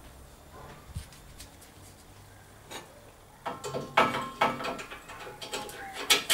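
Metal tools and parts clinking and clicking against each other during hands-on assembly: a few faint knocks, then about halfway in a run of irregular sharp metallic clicks, some ringing briefly, loudest just after the midpoint and again near the end.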